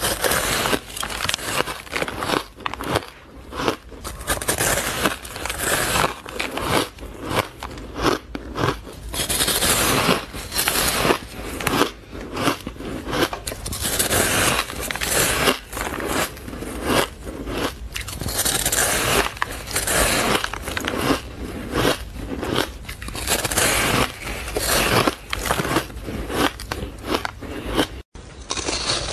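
Close-miked biting and chewing of fluffy, crumbly frozen ice: a dense run of crisp crunches, several a second.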